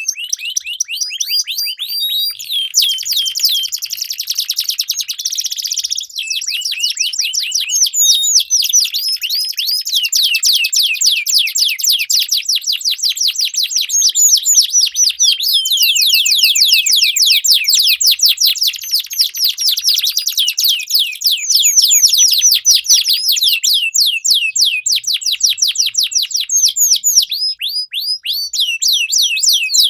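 Domestic canaries singing, rapid trilled rolls of quick repeated down-sweeping notes that run on continuously with changes of phrase every few seconds; more than one bird appears to sing at once.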